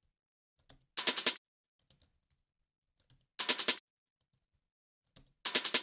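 Computer keyboard keys tapped in four short quick groups, each a few clicks, about two seconds apart, with silence between.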